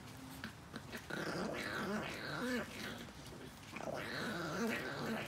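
Chihuahua growling in two spells of about a second and a half each, a warning to keep a puppy away from the chew stick it is holding.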